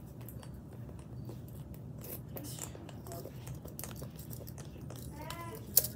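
A child's mouth sounds while eating a pink candy: scattered small wet clicks and smacks over a steady low hum. A brief wavering squeak or hum comes near the end, followed by one sharp click.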